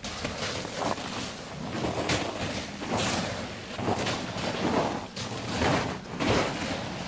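Footsteps crunching through snow with the swish of clothing and packs as people walk, a swell about once a second, over some wind noise on the microphone.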